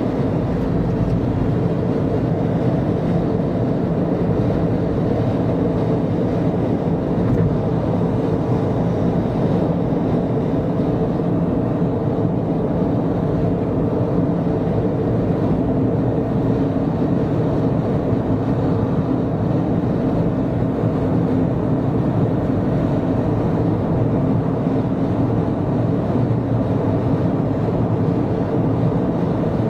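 Steady road and engine noise of a car cruising on an expressway, heard from inside the cabin, with no change over the stretch.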